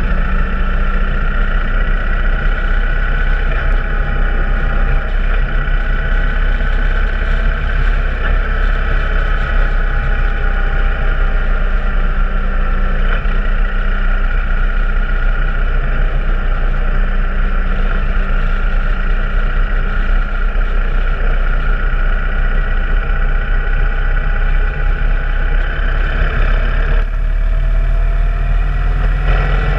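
Motorcycle engine running steadily at cruising speed, with road and wind noise. Its pitch drifts slowly up and down through the curves, and the sound changes abruptly near the end at a cut to another stretch of road.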